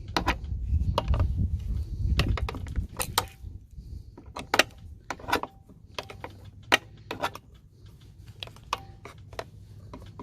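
Scattered clicks and taps of small parts being handled and fitted on a leaf blower during repair, a few with a brief metallic ring. A low rumbling handling noise runs under them for the first three seconds or so.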